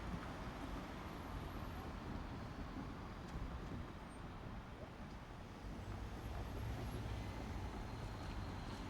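JR Shikoku KiHa 40 and KiHa 47 diesel railcars' engines running as a low, steady drone. The drone grows louder about six seconds in.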